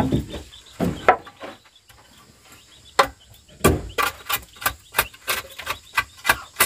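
Hammer blows on wood as nails are driven into a wooden wall: a few spaced strikes, then a quick steady run of about three blows a second through the second half.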